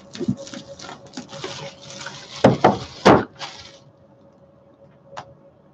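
Cellophane shrink-wrap crinkling and crackling as it is pulled off a cardboard box, with two louder crunches about two and a half and three seconds in. It then stops, leaving a single click near the end.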